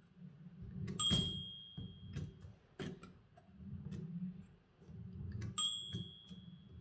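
A typewriter's bell dings twice, about four and a half seconds apart, each ding ringing on for about a second; this is the bell that warns the typist the carriage is nearing the end of the line. Between the dings come sharp clacks and a low rumble from the typewriter's mechanism.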